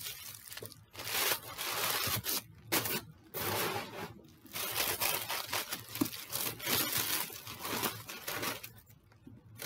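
Tissue paper rustling and crinkling as a wrapped gift is pulled open by hand, in a run of bursts broken by short pauses.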